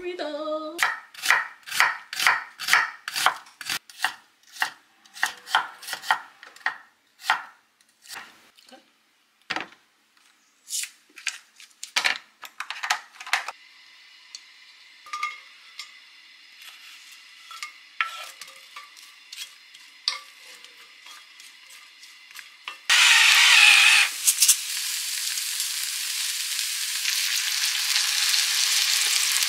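A knife chopping on a cutting board, about two strikes a second, for the first dozen seconds. Then oil hisses softly in a cast-iron skillet on a gas hob, and about 23 seconds in it breaks into loud frying as sliced vegetables go into the hot oil.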